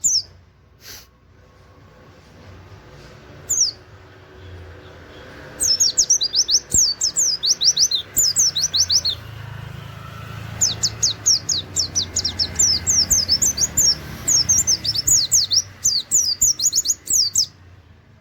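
White-eye (pleci) singing: a couple of single high notes, then two long runs of quick, high, downward-sliding whistled notes, the canary-like 'wit wit' volleys (nembak) that bird keepers use as tutor song.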